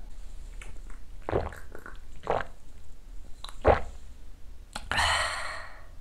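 A shot of soju being downed close to the microphone: three separate swallowing gulps about a second apart, then a breathy exhale lasting about a second near the end.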